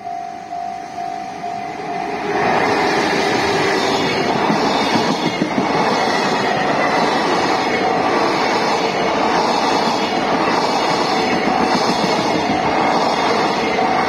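Level-crossing alarm bell ringing in a steady repeating pattern, then about two seconds in a JR Freight container train hauled by an EF210 electric locomotive arrives and runs through the crossing, its wheels clattering steadily over the rails while the bell keeps ringing beneath.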